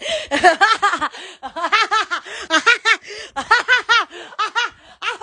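A woman laughing in a long run of short, quick, pitched pulses.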